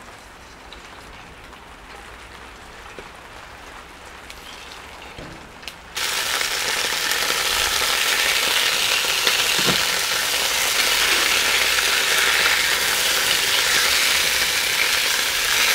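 Bratwursts frying in hot oil in a cast-iron Dutch oven: a faint sizzle at first, then a loud, steady sizzle from about six seconds in. Near the ten-second mark there is a single brief knock, likely the tongs against the pot.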